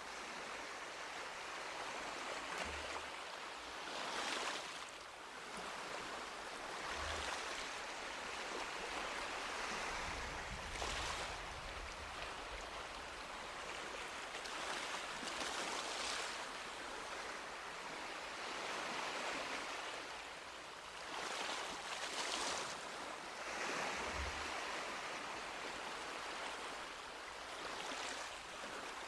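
Sea waves breaking on a beach: a continuous wash of surf that swells and fades every few seconds.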